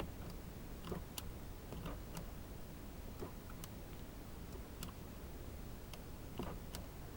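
Faint, irregularly spaced clicks as the power door lock switch of a 2004 Infiniti G35 Coupe is worked: the switch clicks but the door locks do not engage, a lock failure the owner wonders may be a bad actuator.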